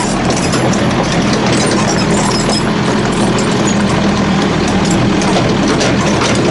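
Yanmar backhoe's diesel engine running steadily close by, with light ticking on top.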